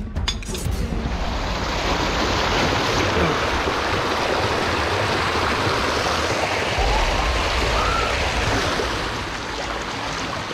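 Small stream rushing and splashing over rocks, a steady loud rushing noise that begins about a second in after a few clicks. A low rumble joins it about seven seconds in.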